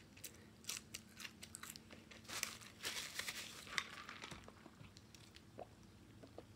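Close-up eating sounds of chewing French fries: a run of small crackles and clicks, then a longer crinkling rustle about two to four seconds in.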